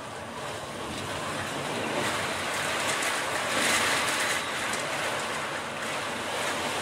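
Typhoon wind and heavy rain beating on a window, heard from indoors as a steady rushing noise that swells about halfway through.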